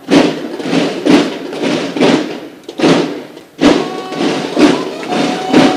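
Drum-and-bugle band playing a flag salute: steady marching drum beats, about two a second, with bugle notes coming in near the end, the last one held.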